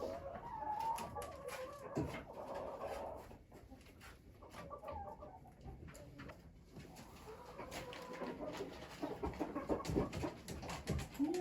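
Domestic hens clucking and murmuring, with a few sharp taps among the calls.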